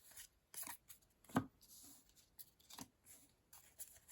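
Trading cards being handled and set down on a table: a few soft taps and rustles, the clearest about a second and a half in.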